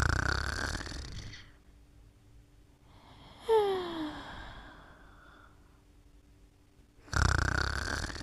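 Slow snoring from a sleeper: a rough snore at the start and another about seven seconds later, each fading away over a second or so. Between them, about three and a half seconds in, a short whistling wheeze slides down in pitch.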